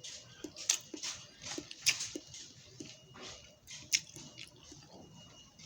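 Close-up chewing and mouth smacks of a person eating, a string of irregular short wet clicks a few times a second.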